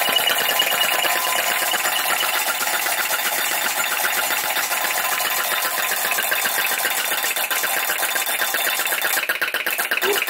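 PM Research No. 3 flame licker vacuum engine running fast, belt-driving a homemade four-stamp gold battery stamper: a loud, steady, rapid clatter of the stamp stems lifting and dropping, mixed with the engine's own ticking. The beat gets sharper near the end.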